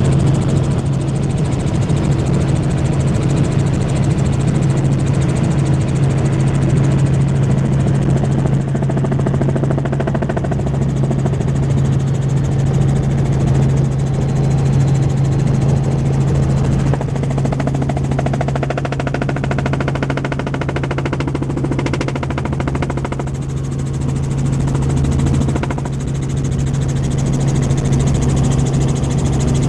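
Helicopter in cruising flight heard from aboard: a steady, loud drone of rotor and turbine engine with a constant low hum.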